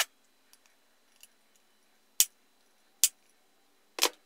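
Hammer blows on a tube driving a ball bearing onto the armature shaft of an Elna SZ 120/125 bench grinder: four sharp metallic taps, one at the start and then three about a second apart. The shaft has no shoulder to stop the bearing, and one blow too many drives it past its seat.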